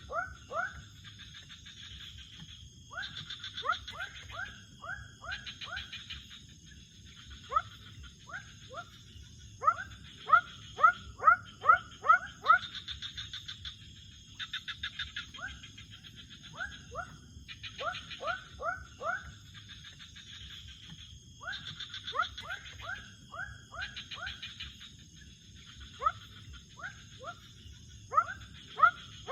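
Night chorus of calling animals: runs of short, quick upward-sweeping calls, several a second, coming and going in bouts, over a steady high-pitched buzz and pulsed trilling, with the low rush of a fast-flowing river underneath.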